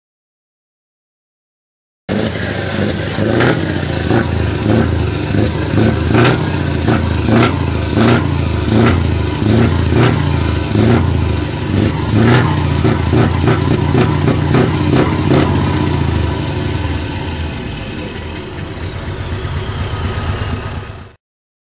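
Scania 164 580's V8 diesel running, heard close to its tailpipe, with a regular pulsing beat about every two-thirds of a second. Near the end a thin whine falls in pitch before the sound cuts off.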